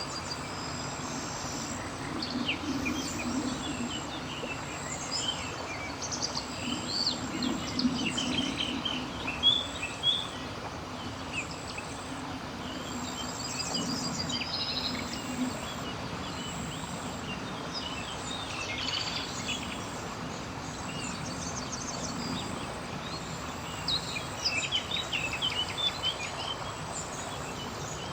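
Outdoor natural ambience: a steady background hiss with birds chirping and twittering on and off throughout. Under it, a low chorus of frogs croaking swells and fades several times.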